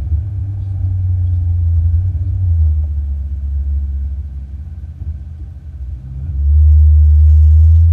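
Ferrari 488 GTB's twin-turbo V8 and road noise making a deep, steady rumble while driving. It dips briefly, then grows clearly louder about six seconds in.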